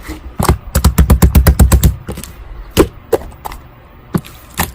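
A quick run of about a dozen dull taps or knocks, about eight a second, then a few single taps spaced out near the end.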